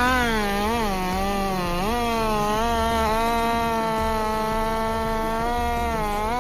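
Chainsaw engine revving, its pitch rising and dipping a few times in the first two seconds, then running steadily at high speed.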